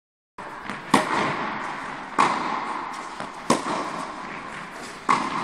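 Tennis balls struck with rackets in a warm-up rally: four sharp strikes about a second and a quarter apart, with fainter ball bounces between. Each strike rings on in the reverberant indoor tennis hall.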